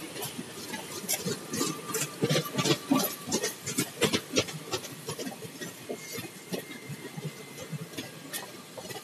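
Blue passenger coaches of an Indian Railways train rolling past close by, their wheels clattering over the rail joints with a rapid, irregular run of knocks and rattles. The clatter is densest in the first half and thins out after about five seconds.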